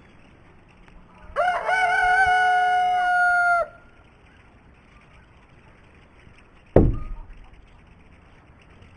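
A rooster crows once, a single call of about two seconds. About seven seconds in, a single sharp thump.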